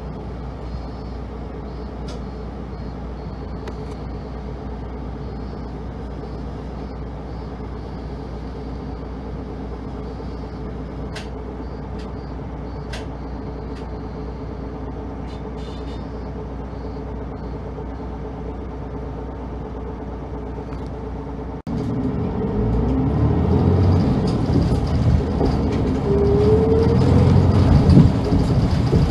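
Route bus heard from inside the cabin: the engine idles steadily while the bus stands still. About three quarters of the way through the sound cuts abruptly to the bus under way, the engine much louder, with a whine that rises in pitch shortly after.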